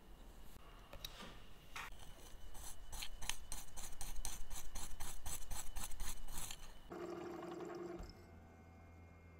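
Stiff brush scrubbing a small watch-movement part held in tweezers, a run of quick scratchy strokes at about four a second that stops abruptly. Then a steady hum from a watch-parts cleaning machine.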